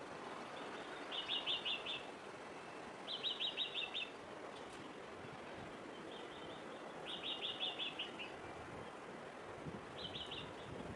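A small bird calling: four short trills of rapid repeated high notes, each under a second and a few seconds apart, the last one shorter, over a steady hiss of background noise.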